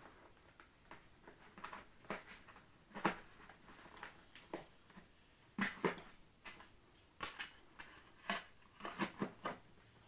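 Scattered light clicks, taps and rustles of hands fitting a plastic canopy onto the foam fuselage of a radio-controlled plane, with several sharper clicks in the second half.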